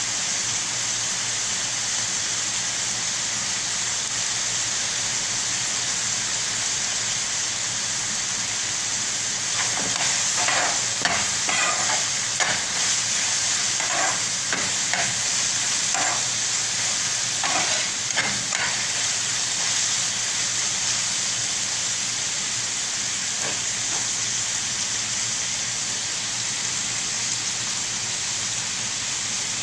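Onions and tomatoes frying in oil in a pan with a steady sizzle. Midway through, a spatula scrapes and knocks against the pan in a run of strokes as the masala is stirred.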